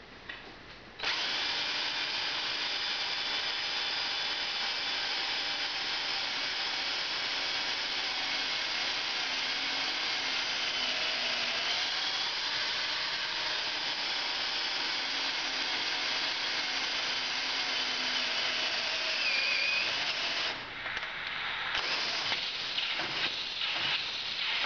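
Power drill starting about a second in and running steadily, its bit boring through the hot-tap valve into the wall of a 2-inch pressurised pipe. Near the end it drops off briefly, then runs again less evenly.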